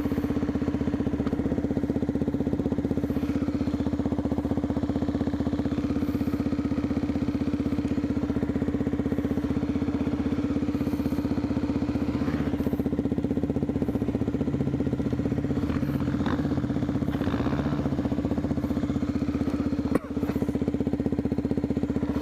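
Honda XR 250 Tornado single-cylinder four-stroke engine idling steadily, with a short click near the end.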